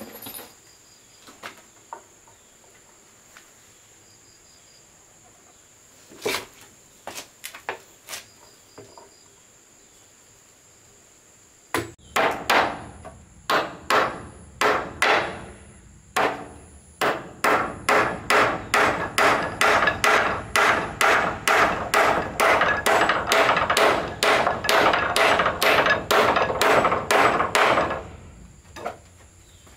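Hammer striking wood, a few scattered knocks at first, then a long, even run of blows at about two to three a second that starts about halfway in and stops near the end.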